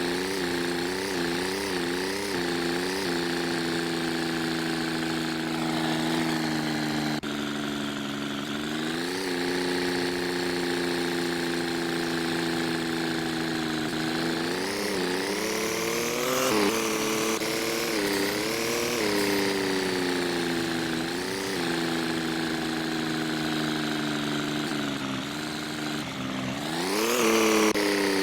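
A motor vehicle's engine running, its pitch rising and falling as the engine speeds up and slows, with a sharp climb near the end.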